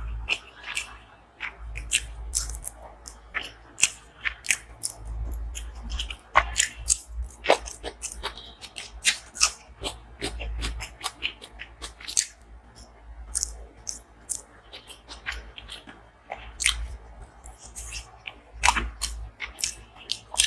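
Close-miked eating sounds: chewing with many sharp, irregular crunches and bites, mukbang-style.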